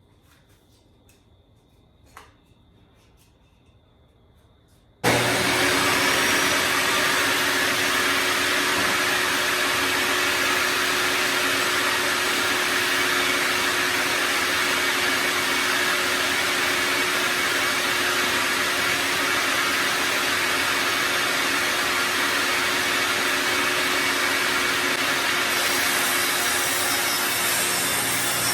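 A quiet stretch with a single click, then a power saw comes on suddenly about five seconds in and runs steadily, ripping a 7/8-inch strip off the side of a board.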